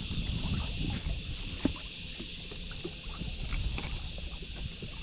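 Water lapping against a small fishing boat's hull, with a low rumble of wind on the microphone and a steady high hiss throughout. Scattered light clicks and knocks of handling in the boat, one sharper knock about a second and a half in.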